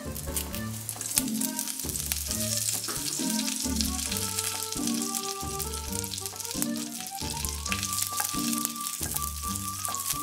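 Curry leaves sizzling and crackling in hot coconut oil with mustard seeds and dried red chillies, the crackle densest in the first few seconds, over background music.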